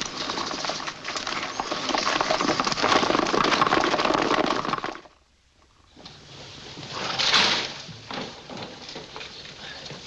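A dense clatter of horses' hooves as several riders set off, cutting off about five seconds in. After a short gap come scraping and one brief crash, loudest about seven seconds in, as timber and stones are piled into a barricade.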